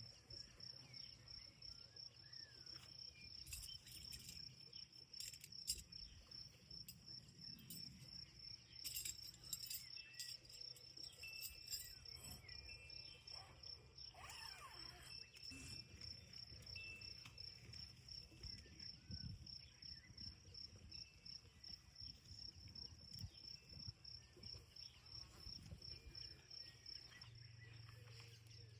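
Insect chirping steadily outdoors: a faint, high-pitched, even pulse repeating a few times a second, with a few faint short bird chirps over it.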